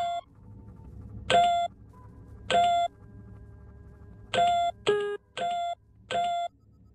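Synthesized computer-style beeps: about seven short electronic tones, each a third of a second long, coming at uneven intervals, with one lower-pitched beep about five seconds in. A faint steady electronic hum runs beneath them.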